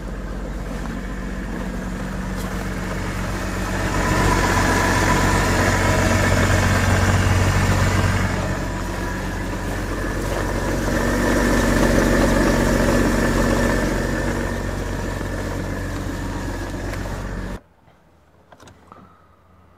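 BMW E90 330d's straight-six diesel engine running cold just after a start in hard frost. It swells louder twice, then cuts off suddenly near the end, leaving a faint hiss.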